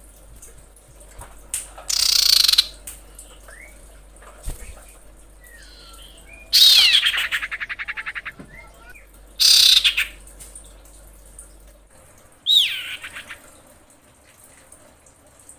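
Female common iora calling: four loud, high, harsh calls a few seconds apart. The second, about seven seconds in, runs into a fast stuttering series of notes, and the last begins with a quick downward sweep. Faint short chirps sound between them.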